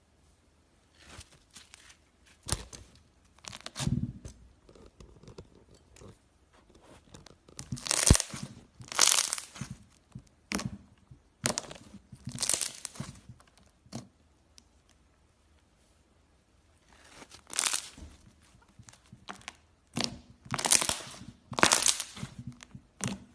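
Slime being worked by hand, giving irregular bursts of crackling and tearing sounds with short quiet gaps between them.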